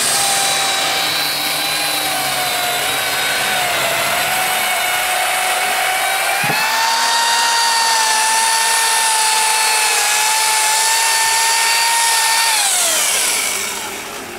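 A power tool's motor running with a high, steady whine. Its pitch sags for a few seconds, climbs back and holds, then falls away as the motor spins down near the end.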